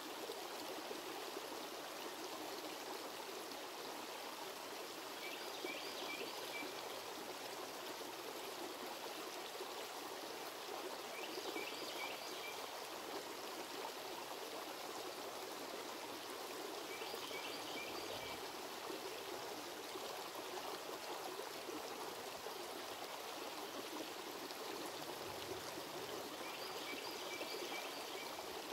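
Shallow creek running steadily over rocks, a constant even rush of water. Over it, a short high call sounds four times, about every six seconds.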